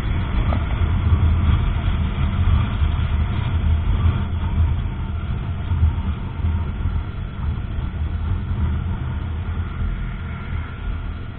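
KTM Duke 125's single-cylinder four-stroke engine running at a steady cruise, with wind rumble on the bike-mounted microphone. It gets a little quieter toward the end.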